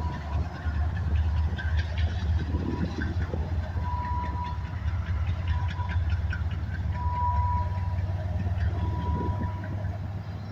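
Union Pacific manifest freight train rolling past: a steady low rumble with scattered clanks and rattles from the cars, and an on-and-off high squeal.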